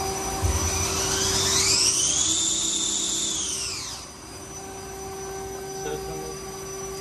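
Spindle of a Nakamura-Tome WT-100 CNC turning center spinning up with a rising whine, holding speed for a moment, then braking to a stop as the whine falls away. A steady machine hum continues underneath.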